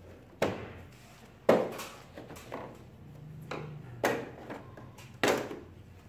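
Plastic clips of an LG Dual Inverter split air-conditioner indoor unit's lower cover snapping loose as the cover is pried off. There are about five sharp snaps, the loudest about a second and a half in, with fainter plastic knocks between them.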